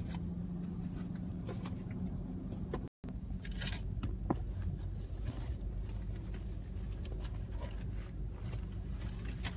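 Car interior: a steady low rumble of the running car, with a few light clicks and rustles of handling. The sound drops out completely for an instant about three seconds in.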